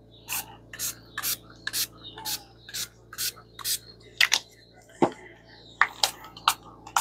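Fine-mist spray bottle of alcohol ink pumped in quick short hissing sprays, about two a second, onto paper. There is a dull thump about five seconds in.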